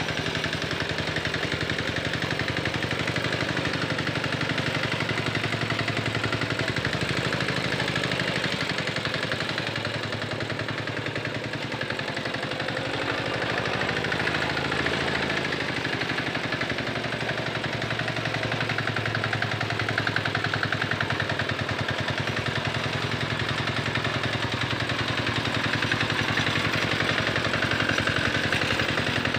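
Small engine of a two-wheel hand tractor (Quick Capung Metal) running steadily with a rapid, even chugging while it pulls a harrow through a flooded rice paddy. Its note shifts a few times around the middle.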